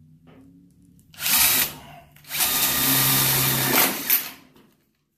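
Cordless drill driving a sheet metal screw through a replacement rocker panel of sheet steel. It runs in a short burst about a second in, then in a longer steady run of about a second and a half, with a brief blip near the end.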